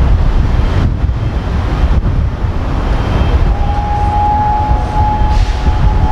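Wind buffeting the microphone in a steady low rumble. About three and a half seconds in, a distant train's warning horn begins: one long steady high note that holds.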